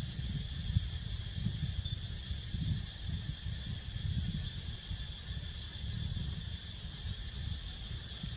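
Outdoor ambience: wind rumbling on the microphone in uneven gusts, over a steady high insect drone.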